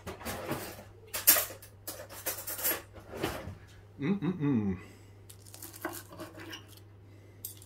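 Metal knife and fork clinking and scraping against a ceramic plate as a baked pie's pastry crust is cut, in a run of sharp clicks and scrapes, the loudest about a second in. A brief wordless vocal sound about four seconds in.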